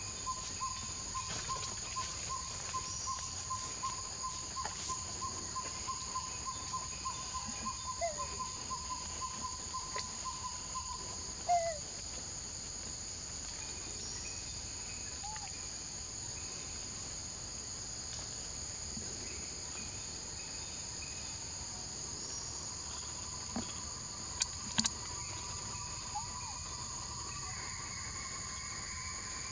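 Insects in forest droning steadily in two high-pitched bands, with a rapid pulsing trill at a lower pitch for about the first ten seconds. A few short chirps break in, the loudest about twelve seconds in, and there are a couple of sharp clicks near the end.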